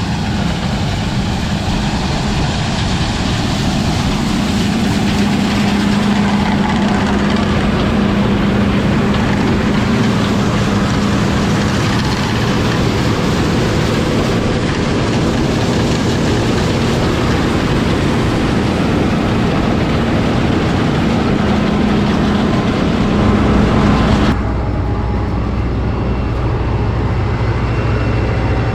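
John Deere 9770 combine running steadily while harvesting soybeans, a loud continuous engine and threshing noise with a steady hum. Near the end the sound changes abruptly to a quieter, lower steady hum.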